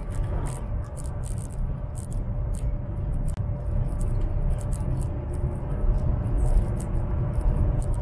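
Cabin noise of a high-speed train running at speed: a steady low rumble with a constant hum, overlaid by irregular light ticks and rattles.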